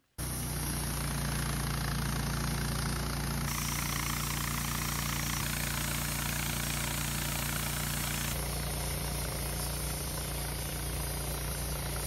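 Woodmizer LT15 sawmill's engine running steadily, with extra hiss from about three and a half to eight seconds in.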